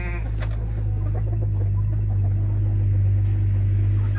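Low, steady engine-like rumble with a faint steady hum above it, growing a little louder toward the end.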